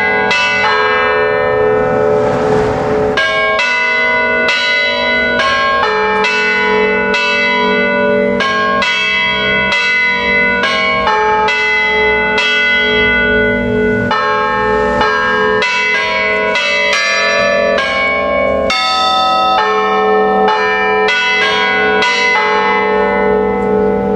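Church bells of a five-bell ring struck one after another by electric hammers while hanging still, playing a melody of quick strokes at changing pitches, each stroke left ringing into the next.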